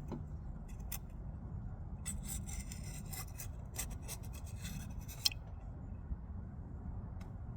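Rubbing and scraping as a rubber O-ring is worked onto an oil filter cap by hand. The scratchy handling noise is densest in the middle and is broken by a few light clicks, over a low steady hum.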